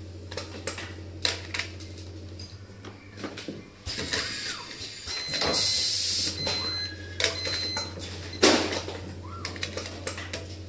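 Automatic multi-station turntable screw-locking machine at work: a steady low hum under clicks and knocks as parts are set into the fixtures and the table moves. A burst of air hiss with short high whines comes about five and a half seconds in, and a loud clack comes about eight and a half seconds in.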